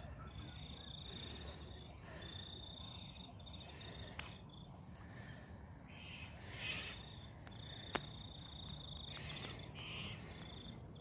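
High-pitched insect trilling in repeated bursts of about a second each, with short gaps, over a low steady background rumble; a single sharp click about eight seconds in.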